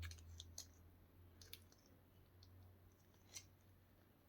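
Near silence with a low hum and a few faint, scattered clicks.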